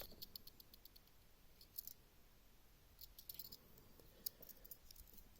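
Faint scattered clicks of a Victorinox Spartan pocketknife being handled, its tools and scales clicking lightly, in near silence.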